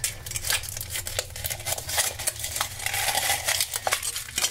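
Aluminium foil wrapper crinkling as it is peeled off a large hollow chocolate egg, with sharp cracks as the thumbs press the chocolate shell and it snaps open.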